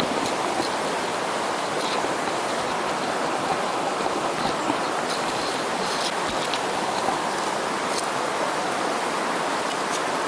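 Steady rush of a mountain stream's flowing water: an even, unbroken noise with a few faint ticks.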